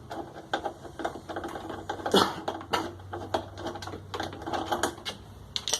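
Irregular clicks and rattles of washing-machine mechanism parts being worked by hand, over a faint low steady hum.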